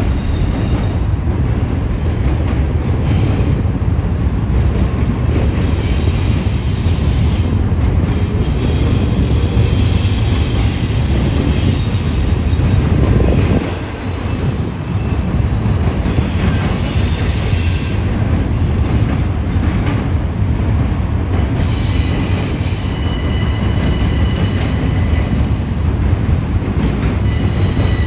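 Double-stack intermodal freight cars rolling past with a loud, steady rumble of steel wheels on rail. Thin, high wheel squeal tones come and go over it.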